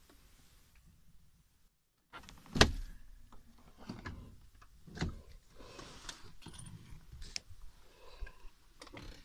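Knocks and clicks inside a vehicle cab as the side window is lowered and the door is handled, the sharpest knock about two and a half seconds in, with several smaller knocks and some rustling after it.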